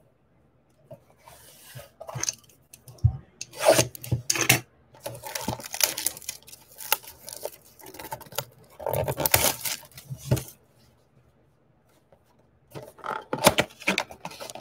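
A cardboard trading-card blaster box being handled and torn open by hand: repeated bursts of tearing and rustling cardboard. The bursts start about two seconds in, pause for about two seconds near the end, then start again.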